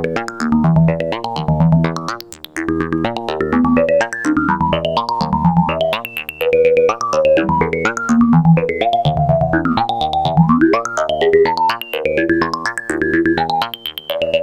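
Eurorack modular synthesizer patch: a pinged Make Noise QPAS resonant filter and Karplus-Strong plucks from the Mimeophone's very short delay, sequenced in pitch by René, giving a fast stream of short plucked, ringing notes that change pitch. A note glides upward about ten seconds in.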